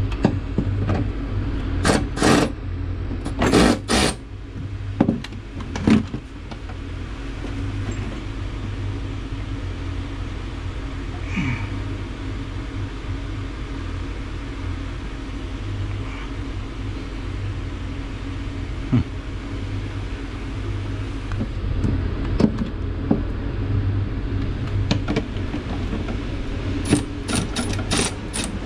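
Sharp metallic clanks and clicks of tools being handled against metal, a few near the start and a quick run of them near the end, over a steady low mechanical hum.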